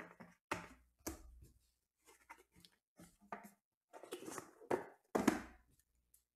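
Trading cards in rigid plastic top-loaders and a cardboard card box being handled: a run of short rustles and clacks, the loudest about five seconds in.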